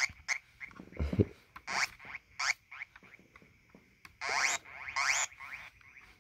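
Korg Monotron Delay analogue ribbon synthesizer played in short squeaky blips, each sweeping upward in pitch, about seven in all with pauses between, and a low thump about a second in.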